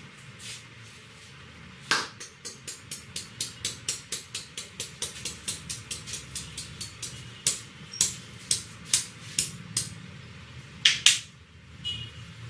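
Hands tapping and slapping on a head during an Indian head massage. A quick, even run of light taps about four a second starts about two seconds in, then louder slaps come about two a second, and two hard strikes close together near the end are the loudest.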